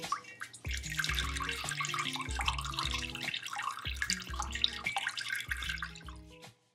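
Water pouring and splashing into a stainless steel pot of pasta cooking water, over background music with a steady bass line; the pouring stops shortly before the end.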